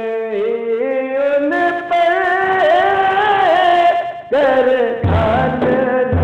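A man sings a naat unaccompanied, in long, held, ornamented notes that climb in pitch. About five seconds in, he starts beating a hand rhythm on a large metal cooking pot, used as a drum, beneath the voice.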